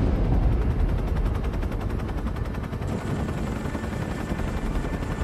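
Sustained battle gunfire: rapid automatic-weapon fire in a dense, unbroken stream of shots over a low rumble.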